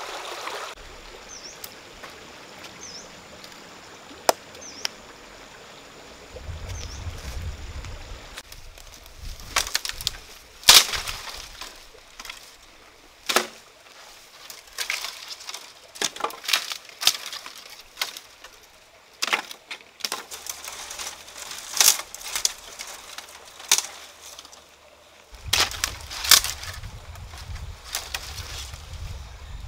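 Dry dead branches snapping and cracking as they are broken and pulled off a fallen tree by hand, many sharp cracks mixed with rustling twigs and leaves. A few short bird chirps in the first few seconds.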